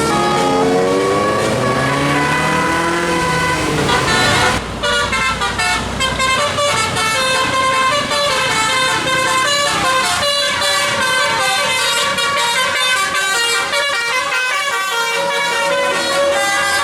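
A tour bus's 'telolet' musical air horn playing. Sweeping, siren-like tones rise and fall for the first few seconds; then, about four and a half seconds in, it switches to a fast melody of short stepped notes.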